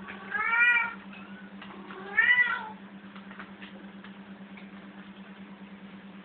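A cat meowing twice, two short cries about a second and a half apart, each rising then falling in pitch, while squared off face to face with another cat.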